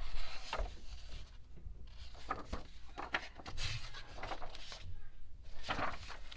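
Paper rustling and handling: a few short rustles and soft taps as pages of a printed photo book are turned.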